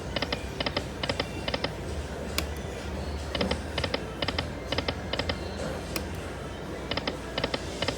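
Lightning Link Moon Race video slot machine spinning, its five reels stopping one after another with a quick run of sharp clicks, about two a second. This happens three times, a spin every three to four seconds, over a low hum of casino background.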